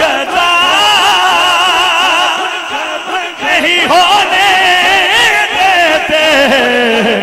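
A man singing a naat into a microphone: long, drawn-out melismatic notes with a strong wavering vibrato, ending on a note that drops and holds low.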